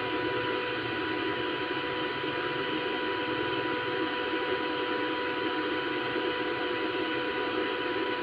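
TIG welding arc on stainless steel: a steady hiss with a thin, even hum under it.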